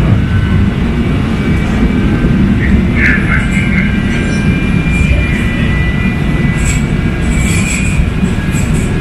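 Kinki Sharyo SLRV light-rail car running along the track, heard from inside the car: a steady low rumble of wheels on rail. Thin high-pitched tones come and go over it, loudest about three seconds in.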